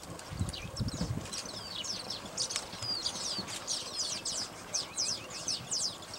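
Many small birds chirping and twittering together, a rapid, overlapping stream of short, high, downward-sweeping notes.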